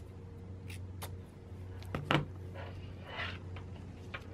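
Scissors snipping fiberglass cloth with a few light clicks, then a clunk about two seconds in as the scissors are set down on cardboard, followed by soft rustling of cloth and paper towel, over a low steady hum.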